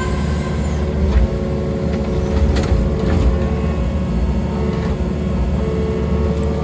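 Heavy diesel engine running steadily with a deep rumble, with a few light metallic clanks about 1, 3 and 5 seconds in.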